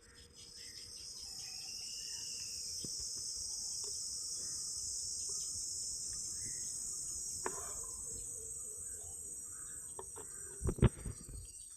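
Steady, high-pitched chorus of insects chirring throughout. A few short knocks are heard, with the loudest cluster of thumps about eleven seconds in.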